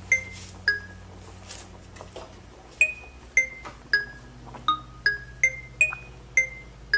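Background music: a light melody of single bell-like struck notes at changing pitches, each ringing briefly, pausing between about one and three seconds in before picking up again at a quicker pace.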